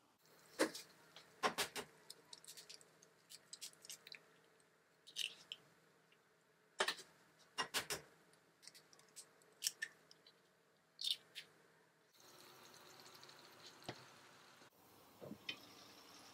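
Eggs being cracked and slipped into a pan of shakshuka tomato sauce: a scatter of sharp shell cracks and soft wet plops. About twelve seconds in, a steady soft sizzle of the sauce and eggs cooking takes over.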